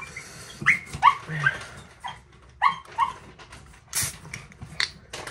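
Dog whining in a string of short, high calls during the first three seconds, followed by a few sharp clicks near the end.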